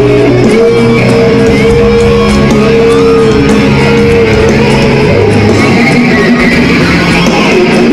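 Loud live rock music, a band led by electric guitar, with long held melody notes over a full backing.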